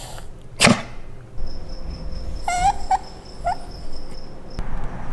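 Italian greyhound whimpering: a thin, steady high whine held for about three seconds, with a few short cries in the middle. A sharp knock about half a second in is the loudest sound.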